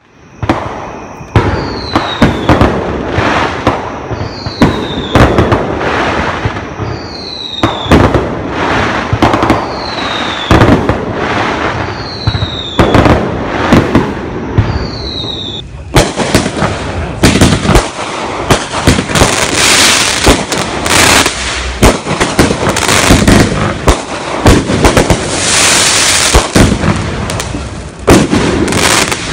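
Fireworks going off: many sharp bangs and pops close together amid continuous crackling.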